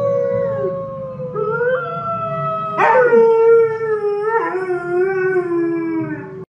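Siberian husky howling along with a wolf howl played on a computer: long overlapping howls that slide in pitch. New howls break in with a rising slide about one and a half, three and four and a half seconds in, over a steady low hum.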